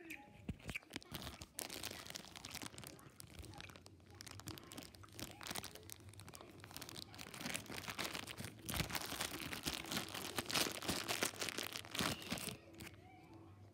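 Clear plastic candy bag with red gummy candies inside, crinkling and crackling as it is handled. The crackling is dense, grows louder in the second half, and stops shortly before the end.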